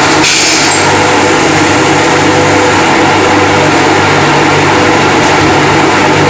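Airless paint sprayer running: a steady motor-and-pump hum under the hiss of paint spraying from the gun, with a brighter burst of hiss just after the start.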